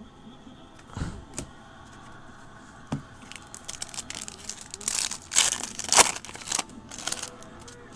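Crinkling of a foil trading-card pack wrapper while baseball cards are handled: a few separate clicks at first, then a busier run of crinkles and rustles through the middle.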